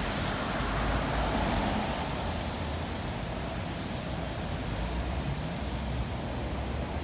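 City street traffic: cars passing on a wet road, a steady rush of tyres and engines with a low rumble, a little louder about a second in.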